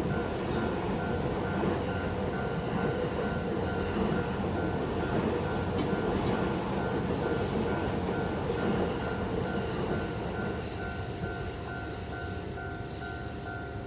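A JR Yokosuka Line train running through a level crossing, its wheels squealing high from about five to twelve seconds in. Throughout, the crossing's warning bell rings in even pulses about twice a second.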